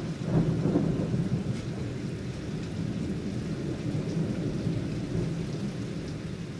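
Rolling thunder rumbling over steady rain, the rumble swelling just after the start and then slowly easing off.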